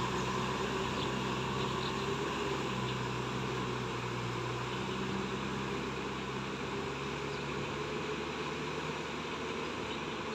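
Kubota M6040SU tractor's diesel engine running steadily under load while its rear rotavator churns through flooded mud, getting slightly quieter as the tractor moves away.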